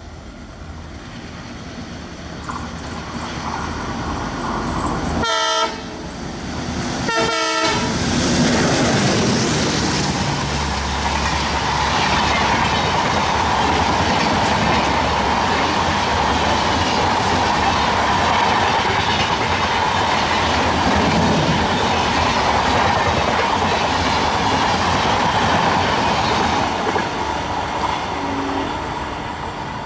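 ALCo diesel locomotive approaching at speed and sounding two short horn blasts about five and seven seconds in, then its passenger coaches running past with loud, steady rushing and wheel clatter that fades near the end as the train moves away.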